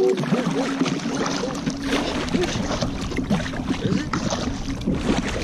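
Kayak being paddled on calm water: the double-bladed paddle's blades dipping in with irregular splashes and drips.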